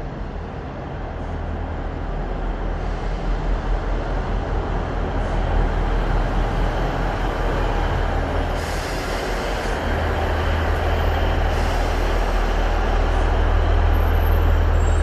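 Northern class 158 diesel multiple unit arriving along a platform and slowing, its diesel engines giving a steady low drone that grows louder as the train comes alongside. A couple of short hisses are heard about halfway through.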